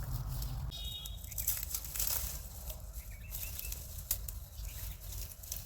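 Rustling and crinkling handling noise with scattered sharp clicks, and a brief high chirp about a second in.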